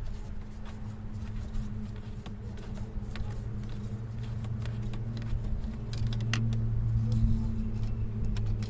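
Small clicks and light rattles of a screwdriver and screws being worked on a car's steering column as the ignition switch is taken off, over a steady low hum that gets somewhat louder after about six seconds.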